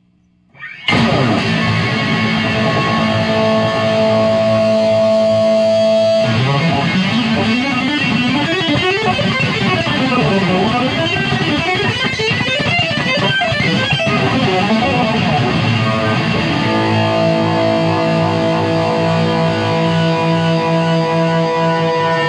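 Electric guitar played loud through a Ceriatone One perCentaur overdrive pedal with burn, treble and output all turned fully up, into a Ceriatone plexi-style tube amp, giving a heavily driven tone. A ringing chord starts about a second in. Around six seconds in the pitches begin swooping up and down in bends, and from about sixteen seconds another chord rings out.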